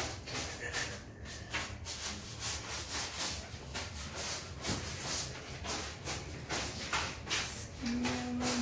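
Soft, irregular rustling and hissing, a few short bursts a second, over a low hum. Near the end a single steady held note begins.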